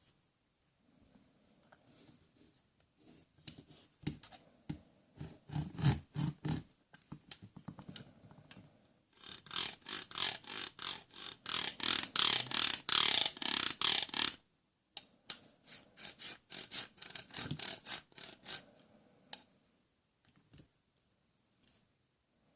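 Plastic toy tools clicking and rattling in a rapid run of clicks, densest and loudest in a stretch of about five seconds in the middle.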